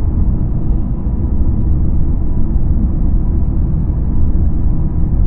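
Dark ambient drone: a deep, steady low rumble with a faint held tone above it.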